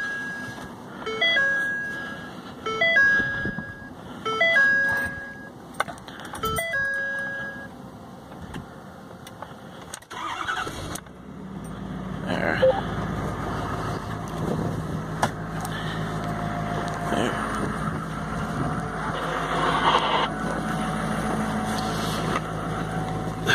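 A dashboard chime repeats about every one and a half seconds with the key on. About eleven seconds in, the 2012 Ford F-250's 6.7 L Power Stroke turbo-diesel V8 cranks and starts from cold, then settles into a steady idle.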